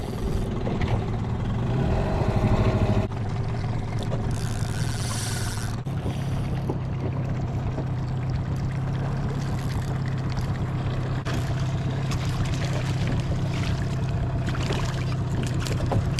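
Boat engine running steadily with a low hum. A brief rushing noise, like water, about four seconds in.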